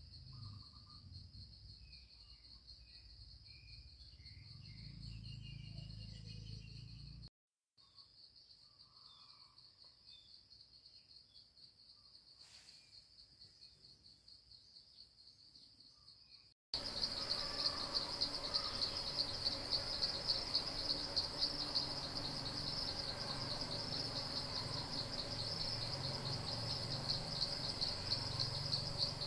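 Insects singing: a steady, high-pitched trill that breaks off briefly twice and comes back much louder about two-thirds of the way through, with a fast pulsing beat.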